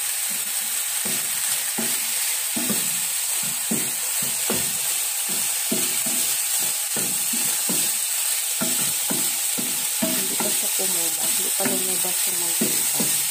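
Pork pieces frying in oil in a nonstick pan, sizzling steadily, while a wooden spatula scrapes and taps the pan in irregular strokes as they are stirred. The pork is being rendered so that its fat comes out.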